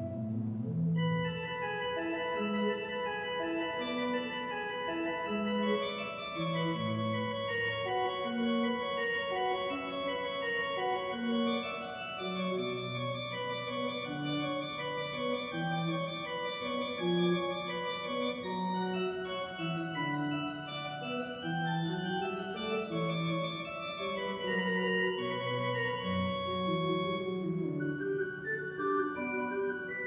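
Schantz pipe organ playing a Baroque piece: several voices of sustained notes moving together over a changing bass line, without a break.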